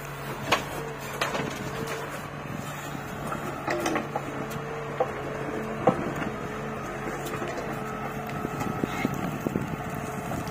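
Backhoe loader's diesel engine running steadily under load as the backhoe digs and loads earth, with a few sharp metallic knocks from the bucket and boom, the loudest about six seconds in.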